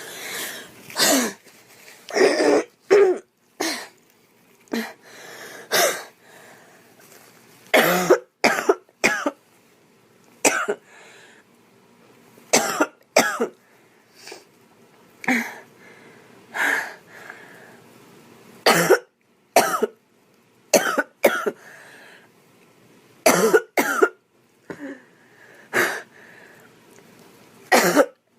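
A girl coughing over and over: single coughs and quick runs of three or four, with short pauses in between.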